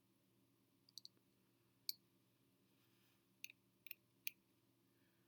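Small, light clicks of fingerboard parts being handled, about seven in all, scattered through the quiet: a pair about a second in, one near two seconds, then a cluster between three and a half and four and a half seconds.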